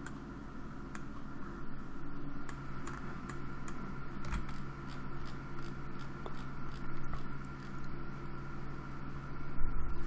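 Steady background hum and hiss, with faint clicks scattered through it about once or twice a second.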